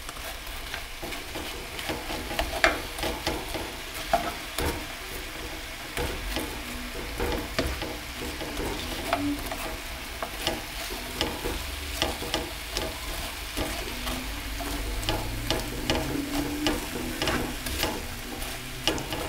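Sliced onions and garlic frying in oil in a frying pan over low heat, sizzling, while a slotted spatula stirs them, with frequent short scrapes and clicks of the spatula against the pan.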